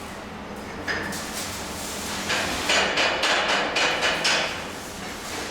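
Metal being struck with a hammer: a single knock about a second in, then a quick run of blows, roughly five a second, lasting about two seconds.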